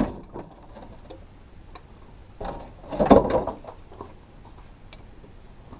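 Starter motor briefly bumping over the Toyota 3VZ-E V6, one short burst about two and a half seconds in that lasts about a second, jarring the crankshaft pulley bolt with a pry bar braced against the frame to break it loose.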